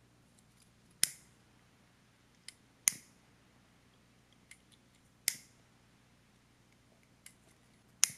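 A handheld lighter clicking as it is lit: four sharp clicks about two seconds apart, with a few fainter clicks between them.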